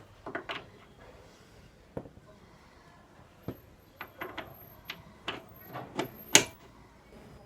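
Scattered clicks and knocks of a welding cable's notched twist-lock plug being seated and turned into the welding machine's panel socket, the sharpest knock near the end.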